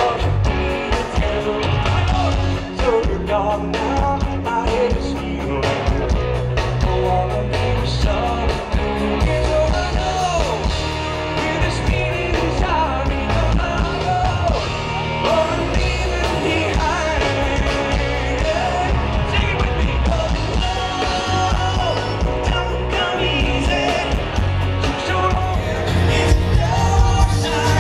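Rock band playing live through a concert PA, heard from the audience: lead singing over electric guitars, keyboards and drums, a little louder near the end.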